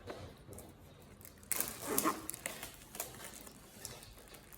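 Handling of packaging: a short burst of rustling about a second and a half in, then a few light clicks and taps.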